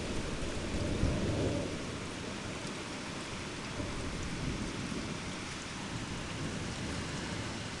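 Thunder rumbling low and fading away over the first two seconds, over the steady hiss of falling rain.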